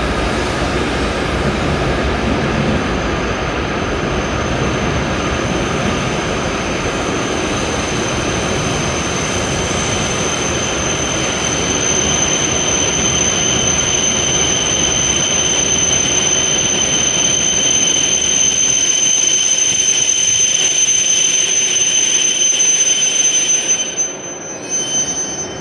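E7 series Shinkansen train pulling into the platform and slowing to a stop. The rumble of the passing cars fades as it slows, while a high steady squeal grows louder and then cuts off suddenly as the train halts near the end.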